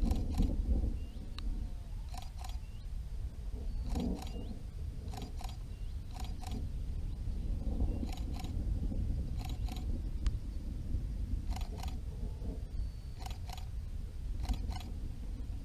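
A single-lens reflex camera's shutter firing over and over, each shot a quick double click, at uneven gaps of one to two seconds. A steady low rumble runs underneath.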